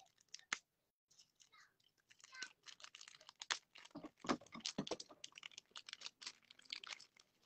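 Thin plastic packaging from a miniatures booster box crinkling and crackling as it is handled and pulled open. A few faint clicks at first, then a dense run of small crackles from about two seconds in.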